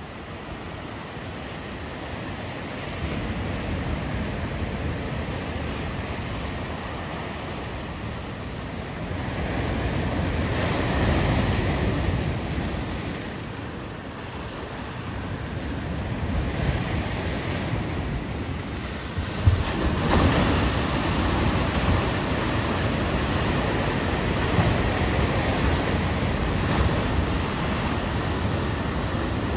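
Ocean surf breaking and washing over shoreline rocks, with wind buffeting the microphone. The waves swell louder about a third of the way through and again from about two-thirds of the way on, with a brief thump just before that second rise.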